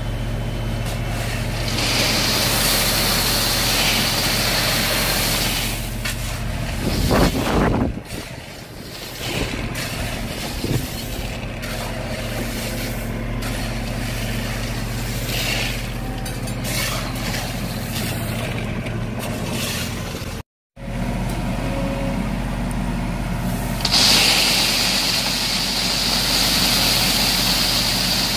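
Small engine of a compact tracked dumper running steadily. Near the end comes a hissing rush of gravel sliding out of its raised hopper into a trench, and there is a brief loud clatter about seven seconds in.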